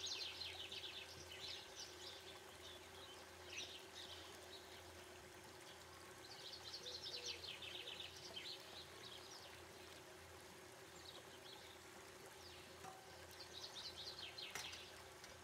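Near silence: faint room tone with a low steady hum, and every few seconds short bouts of faint high-pitched chirping.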